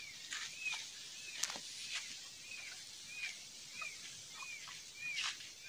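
A bird chick peeping: short, high, arched peeps repeated steadily about twice a second, with a couple of faint taps.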